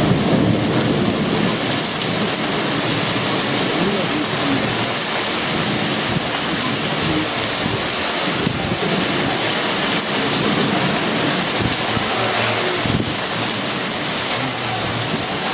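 A hailstorm with rain pelting hard tiled surfaces: a dense, steady hiss of many small impacts, with a heavier low rumble in the first second.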